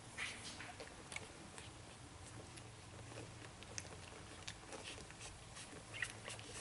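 Newborn whippet puppies suckling at their mother: faint, irregular little clicks and smacks.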